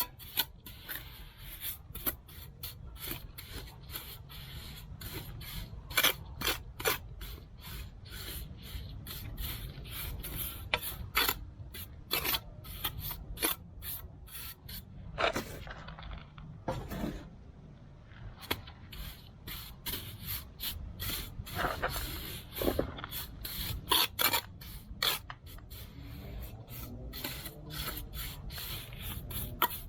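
Trowel scraping and spreading wet concrete as the bed for a bluestone stair tread: many short, uneven scrapes throughout, over a steady low rumble.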